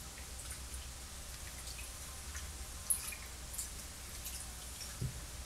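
Faint water sloshing and dripping as a spoon stirs a soaked shirt around a plastic tub of dye fixative bath, with scattered small clicks. A single sharp tick about three seconds in and a soft thump near the end.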